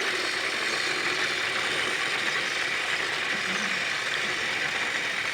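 Battery-powered TrackMaster toy train engines whirring steadily as their geared motors drive them along the plastic track.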